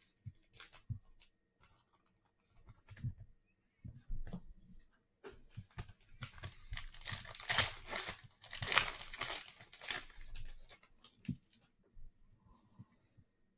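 A pack of 2021 Rookies & Stars football cards being torn open, its wrapper crinkling, loudest in a stretch of tearing and crinkling from about six to ten seconds in. Scattered light clicks and taps of cards being handled come before it.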